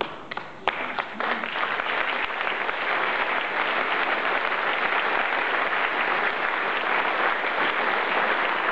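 Audience applauding at the end of a recited poem: a few scattered claps, building within about two seconds into full, steady applause.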